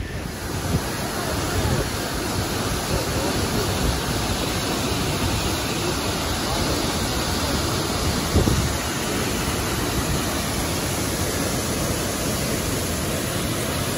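The Great Falls of the Passaic River rushing in a steady, even roar of falling water. There is a brief low thump about eight seconds in.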